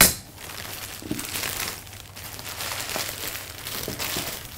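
A plastic packaging bag crinkling and rustling as it is handled and crumpled, with a sharp crackle at the start.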